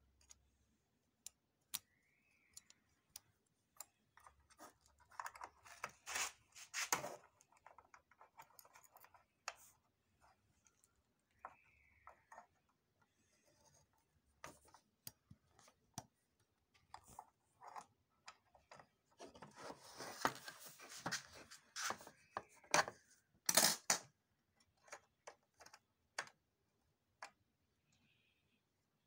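Hands working cables and plastic parts inside a photocopier: scattered clicks, taps and scraping, with two louder stretches of rubbing and clatter about six and twenty seconds in.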